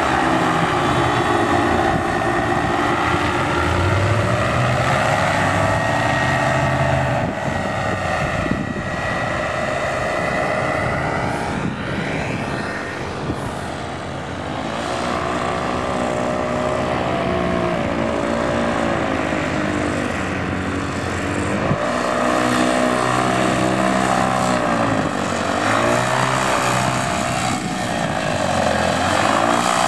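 Paramotor engines and propellers running as powered paragliders fly low past, the engine pitch rising and falling several times as they pass close by.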